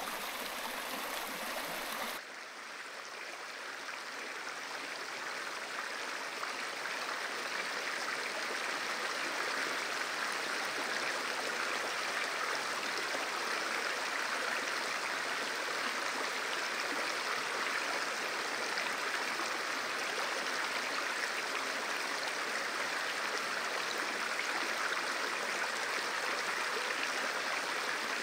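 Running water of a small woodland stream, a steady rush. About two seconds in it cuts abruptly to a fuller rush of water that slowly grows louder, then holds steady.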